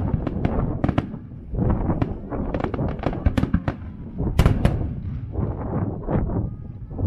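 Barrage of aerial firework shells bursting: a rapid, irregular string of sharp bangs and crackles over a continuous low rumble. The loudest pair of bangs comes a little over four seconds in.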